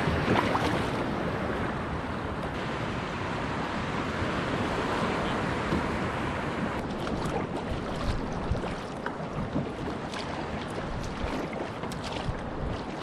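Water washing and lapping against a paddled sea kayak's hull, with wind on the microphone. In the second half, short splashes and drips come from the paddle blade.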